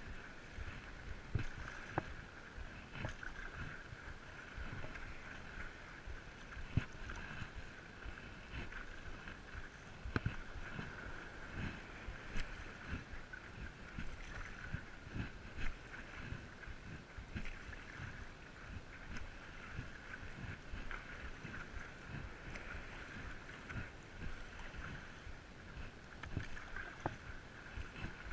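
Stand-up paddleboarding on the ocean, picked up by a chest-mounted GoPro: the paddle dipping and pulling through the water, with irregular splashes and water slapping against the board.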